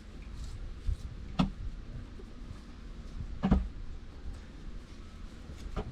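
A few sharp knocks, four in all, the third the loudest, over a low steady rumble.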